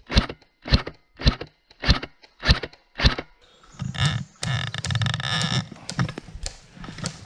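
Footsteps on the woodland floor at a steady walking pace, about one and a half steps a second, stopping about three seconds in. A couple of seconds of scraping and rustling follow, then a few lighter knocks.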